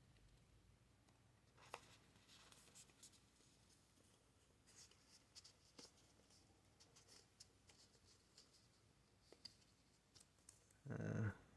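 Faint rustling and small clicks of trading cards being slid into plastic card sleeves, near silence otherwise. A brief, louder low sound comes about eleven seconds in.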